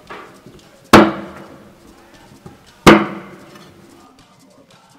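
Heavy meat cleaver chopping through a dressed guinea fowl onto a thick wooden chopping board. There are two loud chops about two seconds apart, each with a brief ringing from the board, after a lighter knock at the start.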